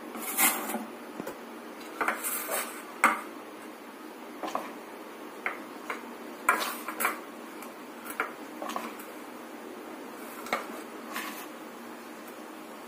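A steel spoon knocking and scraping against an aluminium idli plate and the rim of a batter bowl as idli batter is spooned into the moulds, in a dozen or so irregular clinks.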